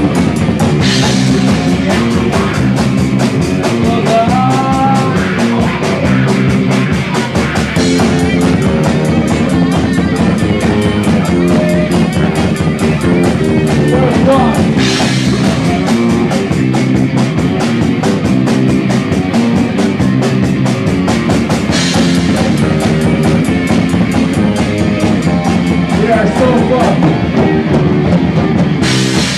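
Live rock band playing loud: a Premier drum kit and guitars driving a steady rhythm, with several cymbal crashes along the way.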